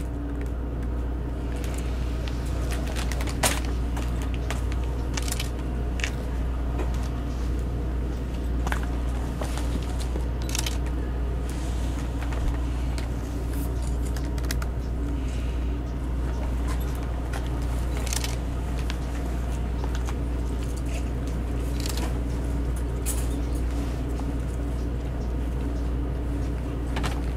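A steady low motor hum, like an engine running, with scattered crinkles and clicks of a plastic cat-food bag as cats dig into it and eat.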